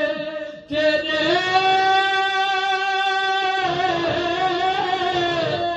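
A man's solo voice reciting a naat, amplified through a microphone. After a brief breath about half a second in, he holds one long, steady note for about two and a half seconds, then moves into a wavering phrase that bends downward.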